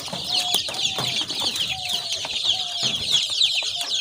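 A brood of 20-day-old desi chicks peeping constantly, many high, falling chirps overlapping, with a few sharp clicks among them.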